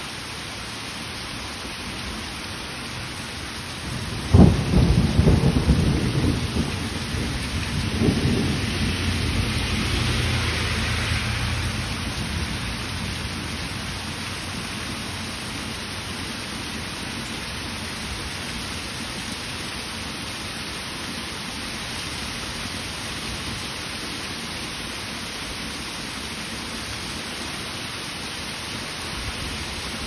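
Heavy rain pouring steadily, with a sudden crack of thunder about four seconds in that rolls on as a low rumble for several seconds before fading.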